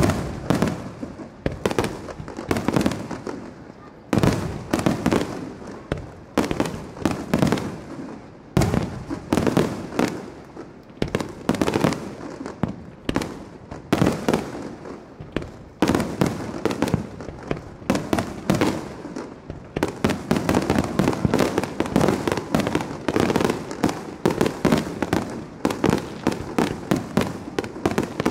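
Fireworks display: aerial shells launching and bursting one after another in quick clusters, with crackling. From about two-thirds of the way through, the bursts come faster and almost without a break, as in a finale barrage.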